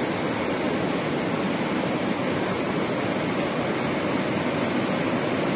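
Muddy floodwater pouring through a hydroelectric dam's open spillway gates, a steady, unbroken rush of water.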